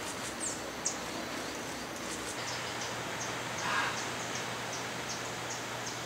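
Tropical forest ambience: a steady hiss with short, high chirps, a couple in the first second and then a run of about three a second from about two and a half seconds in, and one brief harsher sound just before the middle of the run.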